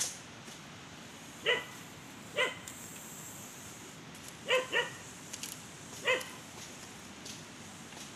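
A dog barking: about six short single barks a second or so apart, with a quick pair about halfway through.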